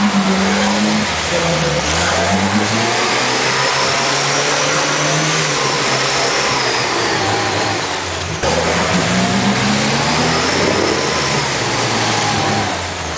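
Engine of a 4x4 stuck deep in mud revving hard in repeated rises and falls as the driver tries to power out with the wheels spinning. A high whine climbs and falls with the revs, twice.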